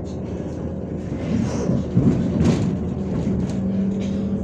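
Inside a MAZ-105 articulated city bus underway, its engine and drivetrain humming steadily. About a second and a half in, a louder rattle with a couple of knocks.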